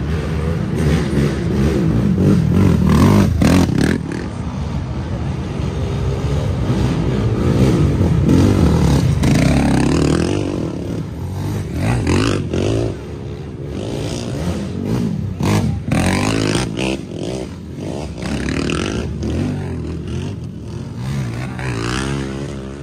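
Racing ATV engines revving hard under load on a hill climb, their pitch rising and falling again and again as quads pass, with scattered sharp clacks.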